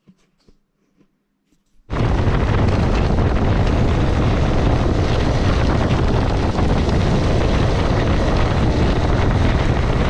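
Loud wind noise buffeting the microphone of a camera mounted on a moving motorcycle. It starts abruptly about two seconds in.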